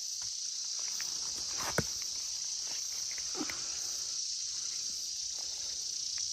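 Steady high-pitched chorus of insects in the forest, with a sharp snap about two seconds in and a softer rustle a second and a half later from someone moving over the forest floor.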